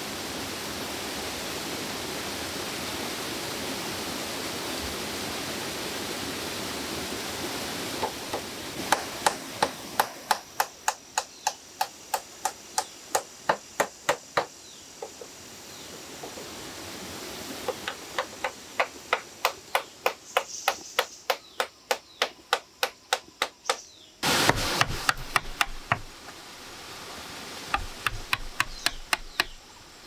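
A waterfall's steady rush, then runs of quick, sharp knocks, about three a second, of a tool striking wood and bamboo as he works. A louder, longer burst of knocking comes a little past two-thirds through.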